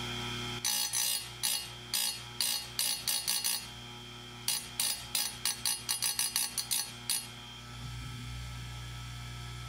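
Oregon 520-120 chain grinder's spinning wheel tapped lightly against a chainsaw cutter tooth in short grinding touches. The first run comes at about two a second, then after a brief pause a faster run of about ten. The light taps keep the tooth from overheating and losing its temper.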